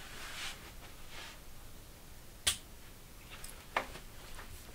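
Quiet room tone during a pause in speech, with two short sharp clicks: a louder one about two and a half seconds in and a fainter one near four seconds.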